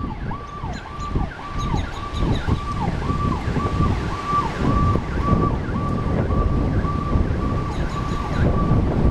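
A siren cycling fast, about twice a second, its pitch holding and then dropping each time, over heavy wind noise on the microphone.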